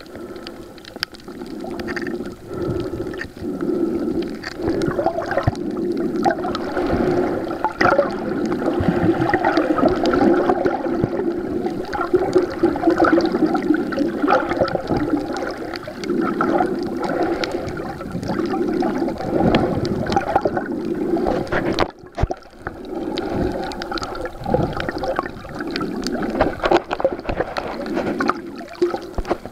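Muffled sloshing and gurgling of water heard underwater through a waterproof compact camera's built-in microphone, a continuous rumbling wash with many small crackles and clicks. It dips briefly about three-quarters of the way through.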